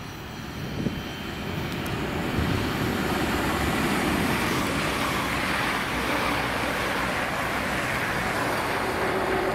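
Train running through the station: a rush of wheel and rail noise that swells over the first few seconds, then holds steady.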